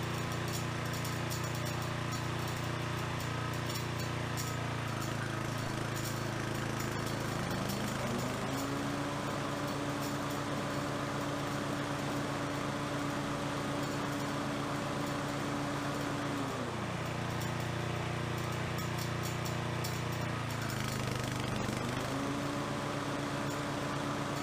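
Toro Timemaster 30 walk-behind mower engine running steadily. It speeds up about eight seconds in, holds the higher speed, drops back near seventeen seconds and speeds up again a few seconds later. This is a test run after a blade-control cable replacement.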